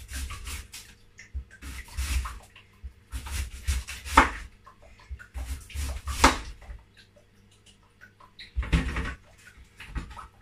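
Kitchen knife cutting through a raw yam and knocking on a wooden chopping board, in several separate strokes with short pauses between.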